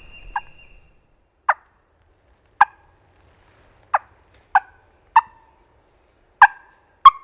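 Turkey clucks: eight short, sharp single notes spaced about a second apart, unevenly, with silence between them.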